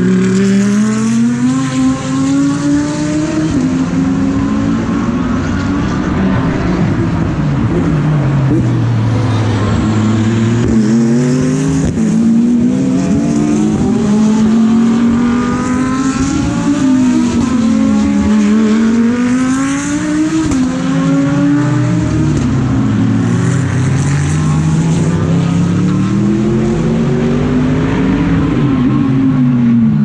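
GT3 race cars coming through a corner one after another, loud throughout. Engine notes drop and then climb again and again as each car slows into the bend and accelerates out, with several cars overlapping at times.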